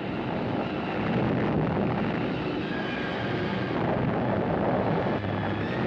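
Steady, dense rumble of an atomic test explosion and its shock wave, heard through an old newsreel soundtrack.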